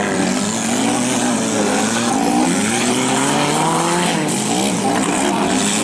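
Engines of off-road 4x4 competition vehicles revving on the course, pitch rising and falling repeatedly, with more than one engine overlapping. One engine climbs steadily in pitch for about two seconds, then drops about four seconds in.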